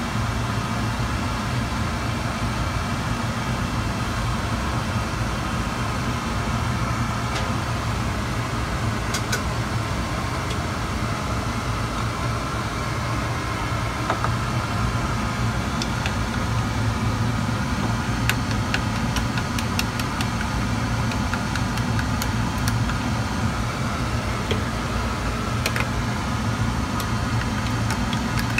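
Steady rushing noise with a low hum from the gas stove and kitchen, with a few faint ticks scattered through, as cooking oil heats in a pan before frying.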